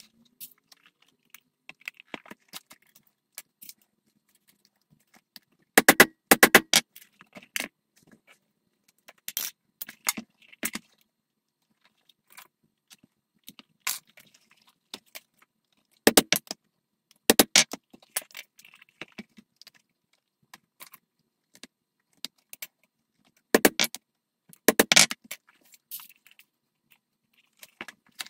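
Short runs of sharp metallic clinks and taps from the buckles and rivet hardware of leather bracer straps being handled on a stone benchtop. Each run is three to five clinks in quick succession and comes about four times, with fainter clicks between.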